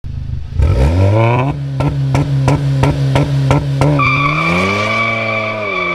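Tuned MK7 Volkswagen GTI's turbocharged 2.0-litre four-cylinder revving through its custom aftermarket exhaust: a quick blip about half a second in, held high with a run of evenly spaced sharp cracks, then a slower climb in pitch and a fall back in the second half.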